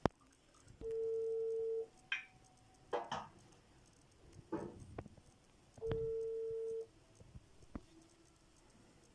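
A steady electronic beep tone, about one second long, sounding twice about five seconds apart, with a few brief short sounds in between.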